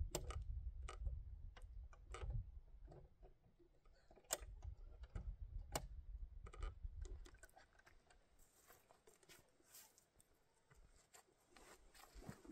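Faint, scattered clicks and knocks from hands working the latch of an old wooden door, over a low rumble that fades out about halfway through.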